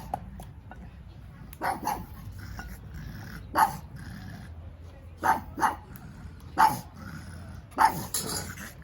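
Dog barking: about six short barks spaced a second or two apart.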